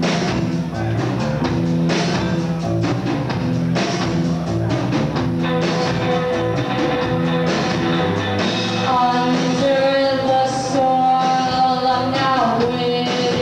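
Live rock band playing, with a steady beat of drum hits over a low bass line. About halfway in, a drawn-out wavering high note joins and holds over the band.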